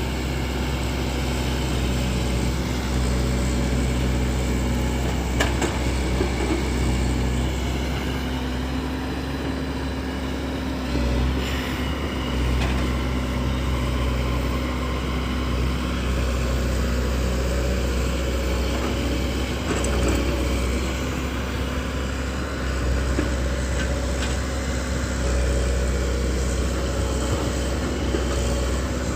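Diesel engine of a JCB backhoe loader running steadily under work, with a few brief knocks.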